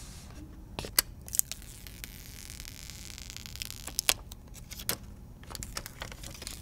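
Handling noise from unboxing a smartphone: scattered light clicks and taps, with a soft rustle, as the phone is lifted from its cardboard box tray and turned over in the hands.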